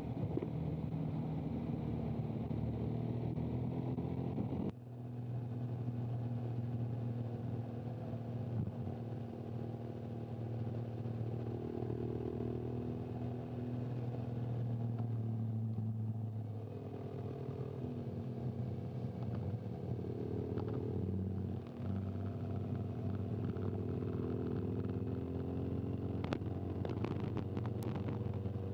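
Motorcycle engine running steadily at low revs, its pitch drifting up and down. The sound changes suddenly about five seconds in, and a few sharp clicks come near the end.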